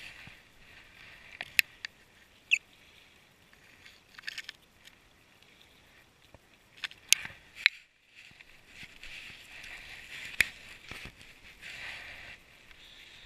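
Jacket fabric rustling against a chest-worn camera as the wearer moves and steps about, with a few sharp clicks and knocks of handling: one about a second and a half in, a quick cluster around seven seconds, another near ten seconds.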